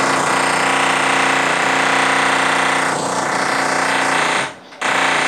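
Loud construction drilling: a hammering power tool runs steadily, stops briefly about four and a half seconds in, then starts again.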